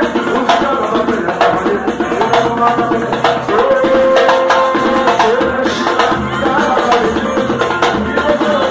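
Percussion-group music: a fast, dense drum and hand-percussion beat under a melody line of held, gliding notes.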